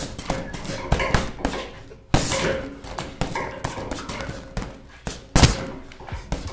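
A run of irregular thumps and knocks, the loudest about two seconds in and again near the end.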